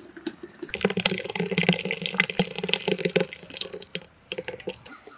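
Liquid pouring and splashing for a couple of seconds, with scattered clicks and light knocks.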